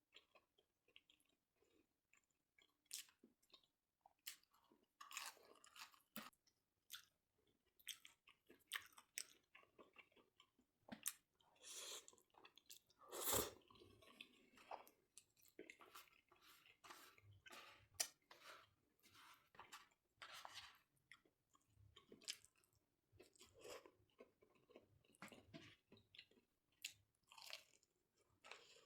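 Quiet, close-miked eating sounds: a person chewing, with frequent irregular crunches and bites.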